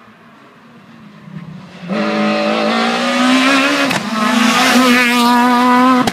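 Renault Clio rally car's engine at high revs as it comes up the stage, bursting in loud about two seconds in, dipping briefly near four seconds, then held at high revs.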